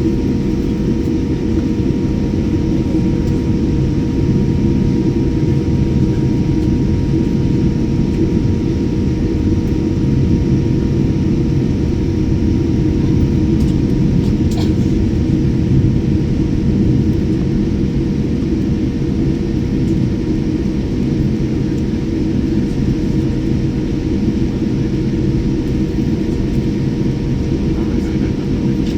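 Steady low vehicle rumble with a constant whine, unchanging throughout.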